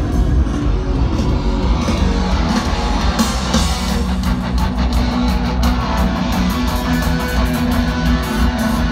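Live rock band playing loud, with driving electric guitar and regular drum hits, heard from among a stadium crowd through a phone's microphone.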